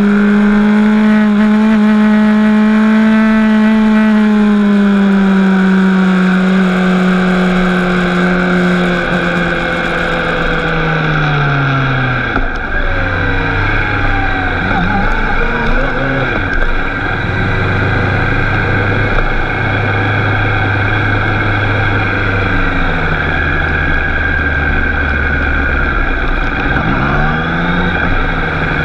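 Motorcycle engine heard from an onboard camera while riding: a steady high-revving note sinks gradually over the first dozen seconds as the bike slows, then drops to low revs about twelve seconds in. Wind rush runs throughout, and there is a short rise and fall in pitch near the end.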